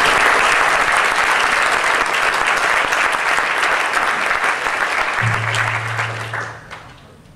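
Audience applauding: a sustained round of clapping that dies away near the end. A low steady hum sounds for over a second as the applause fades.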